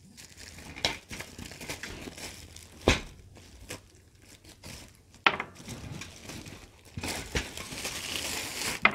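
Mesh carrying bag and plastic wrapping rustling and crinkling as the drawstring is loosened and the bag is worked off a nested stainless steel cook set, with a few sharp clicks along the way. The rustling turns steadier and thicker near the end as the bag is pulled off.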